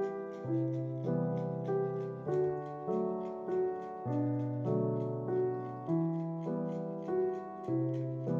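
Piano music: a steady flow of notes, roughly two a second, over held low bass notes.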